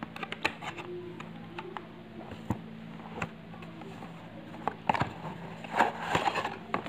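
Clear plastic wrapping and paper packing crinkling and rustling under hands, with scattered sharp crackles and taps. The rustle is densest about five to six seconds in.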